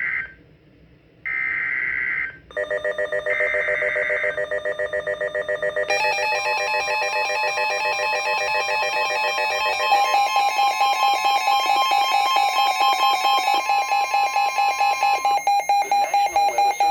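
NOAA Weather Radio SAME alert header: the end of one burst and two more bursts of harsh warbling data tones, about a second each with a second's gap, encoding a severe thunderstorm warning. A receiving weather radio then sounds its own pulsing alarm, and the steady 1050 Hz NWS warning alarm tone runs with it for about nine seconds.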